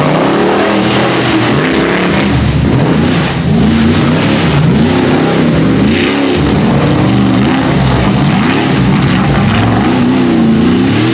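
Rock bouncer buggy's engine revving hard as it climbs a steep dirt hill, its pitch rising and falling over and over as the throttle is worked, with a brief drop about three seconds in.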